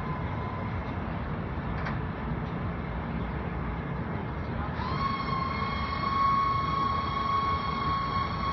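Steady low mechanical rumble; about five seconds in, a steady high whine with overtones starts, gliding up slightly, and holds.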